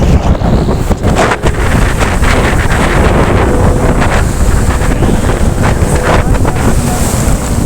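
Strong wind buffeting the microphone: a loud, gusty rumble that stays at about the same level throughout.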